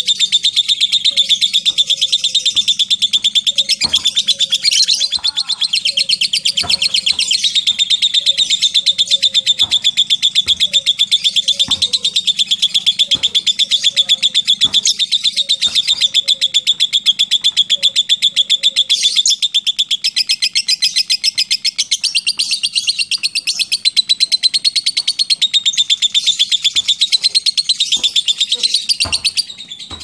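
Lovebird giving a long, unbroken 'ngekek' trill: a rapid, high rattle of fast clicking notes held almost the whole time and breaking off suddenly at the end. Faint short lower chirps repeat underneath during the first half.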